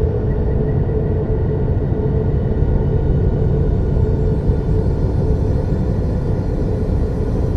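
Ambient space-sound drone: a dense, steady low rumble with one held hum above it, unchanging throughout.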